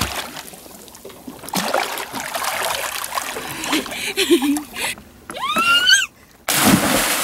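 Sea water splashing around a person swimming, a short rising whoop just before six seconds in, and near the end a loud rush of water.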